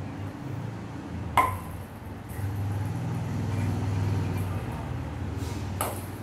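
Two sharp taps of a table tennis paddle striking a ping-pong ball, about a second and a half in and near the end, over a steady low hum.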